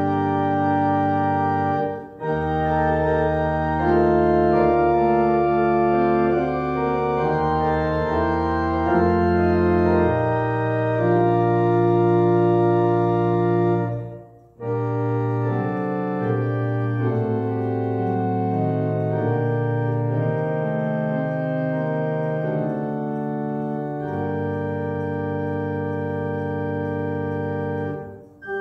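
Church organ played on manuals and pedals: sustained chords over a deep pedal bass, moving in slow phrases. There are short breaks between phrases about two seconds in, about halfway through, and at the very end.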